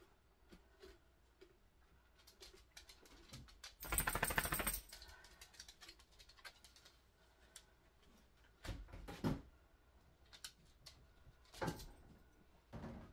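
Plastic clicks and rattles from a cordless stick vacuum being handled and worked on by hand. A loud rattling clatter comes about four seconds in, and sharper knocks follow near the middle and end.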